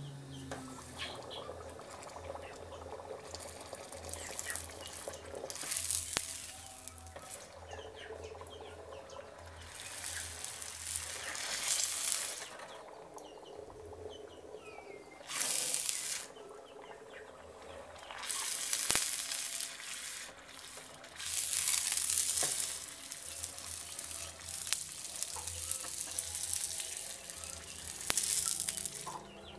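Red-hot leaf-spring-steel throwing knife quenched in a water trough: the steel hisses and sizzles in about six separate bursts, each a second or two long, as the blade is dipped again and again. This is the hardening quench.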